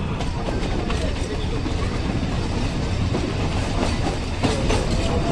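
Nilgiri Mountain Railway toy train running along the track, a steady rumble with wheels clicking over rail joints more often in the second half. A thin steady whine comes in near the end.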